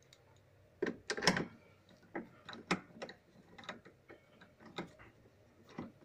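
Irregular clicks and knocks of a screwdriver and plastic and metal parts at the underside of a Mabe Aqua Saver washer's transmission as it is reassembled, with a quick cluster about a second in.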